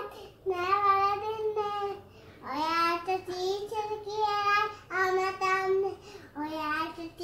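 A young girl singing unaccompanied, in about five short phrases of held notes with brief breaks between them.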